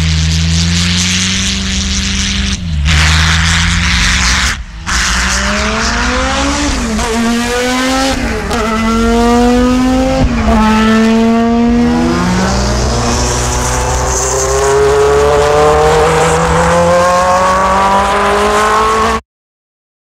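Audi Formula E electric race car's drivetrain whine, several pitched tones layered over a rushing hiss. After a steady low hum at first, the whine rises in pitch, drops back and climbs again several times, then climbs steadily for the last several seconds and cuts off suddenly.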